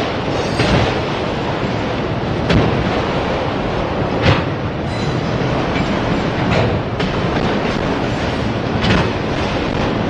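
Freight train rolling past close by: a steady rumble from the cars, with sharp wheel clacks over rail joints every two seconds or so.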